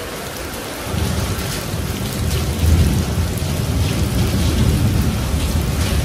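Heavy rain pouring steadily onto standing water on paving and onto leaves. A deep rumble of thunder sets in about a second in and is loudest near the middle.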